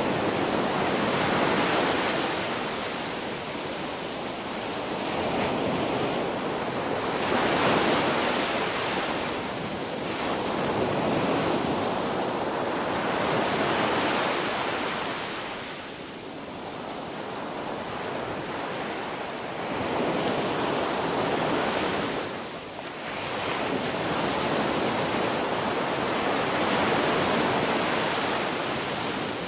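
Ocean waves breaking and washing up on a beach, a continuous rush of surf that swells and eases every few seconds.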